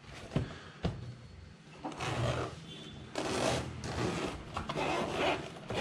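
Hard-shell carry case of a massage gun being shut and handled: two light knocks as the lid comes down, then several short rasping scrapes.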